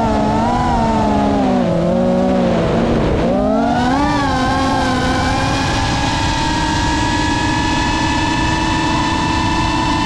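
FPV quadcopter's electric motors and propellers whining. The pitch wavers with the throttle, drops to a low about three seconds in, then climbs and holds steady from about six seconds in.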